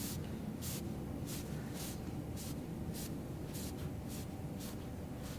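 Soft, short rustling swishes, about two a second, as hands press and slide along a patient's back over clothing during chiropractic palpation, over a steady low room hum. No joint crack is heard.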